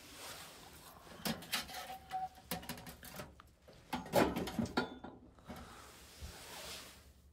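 Objects being handled: a run of irregular clicks, knocks and rustles, loudest about four seconds in.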